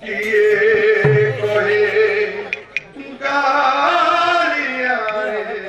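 Male kirtan singer chanting a sung line into a microphone, with a short break just before three seconds and then a fuller, louder phrase. A single low barrel-drum stroke sounds about a second in.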